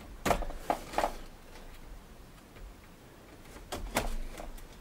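Paper and a cardboard box being handled on a wooden desk: a few rustles and light knocks in the first second, then more light knocks and clicks near the end.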